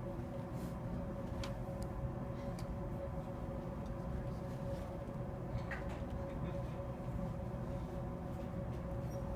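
Steady room hum holding one fixed pitch, with a few faint, short clicks scattered through it.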